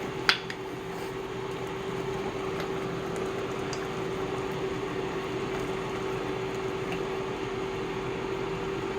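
Steady electric hum of a running appliance, with one sharp click about a third of a second in.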